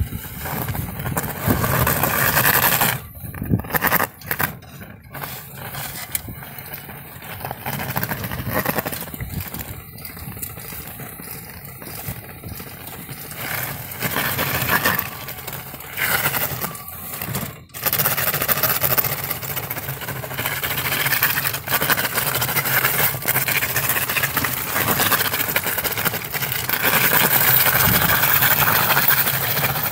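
Homemade remote-controlled plow robot driving on its wheel motors, its plow blade scraping and pushing through snow on pavement. The sound rises and falls as it works, with brief breaks about four seconds in and again past the middle.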